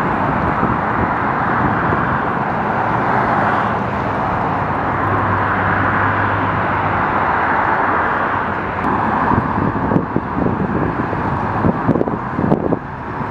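Steady outdoor rushing noise with a faint low hum, joined by scattered knocks and clatter in the last few seconds.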